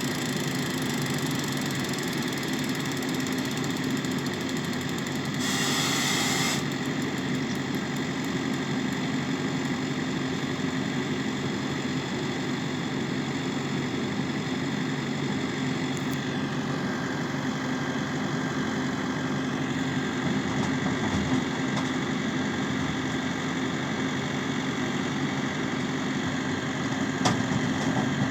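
New Holland T6 tractor engine running steadily with the beet harvesting machinery, with a short hiss about six seconds in. About sixteen seconds in, a higher whine drops in pitch and holds for a few seconds.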